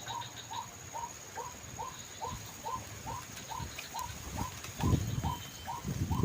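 White-breasted waterhen calls: a steady, even series of short 'kruak' notes, about two and a half a second. Wind gusts buffet the microphone with low rumbles near the end.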